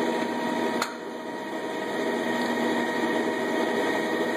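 Steady machine hum with a few constant tones in it, and a single sharp click a little under a second in.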